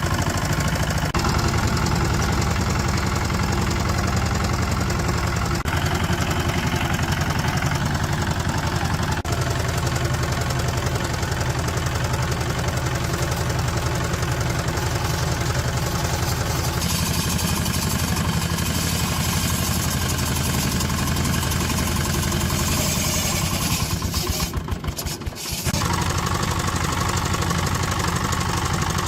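D12 single-cylinder diesel engine running steadily with a knocking beat, dipping briefly about 24 seconds in.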